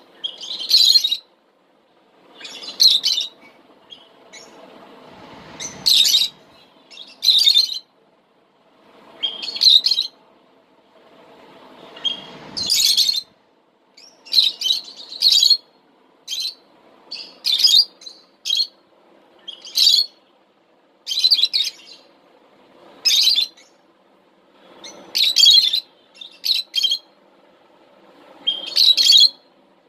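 Lovebirds chirping in short, shrill bursts that come every second or two, with brief pauses between them.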